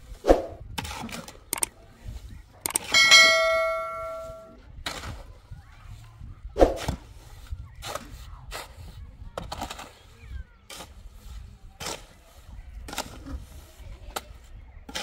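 Shovel scraping and scooping a wet mix in a steel wheelbarrow, with repeated scrapes and knocks. About three seconds in, the blade strikes the wheelbarrow's metal tray, which rings like a bell for about a second and a half.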